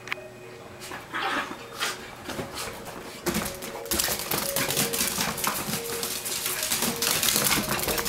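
Dachshunds' claws scrabbling and clicking on a hardwood floor as the dogs dash about. The clicking is sparse at first and turns into a dense, rapid patter from about three seconds in.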